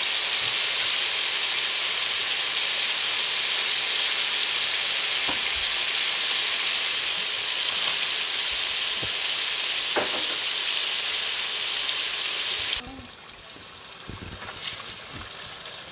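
Battered bluegill fillets frying in hot oil in a skillet, a steady loud sizzle. About 13 seconds in it drops suddenly to a quieter sizzle, with a few clicks and scrapes of metal tongs in the pan.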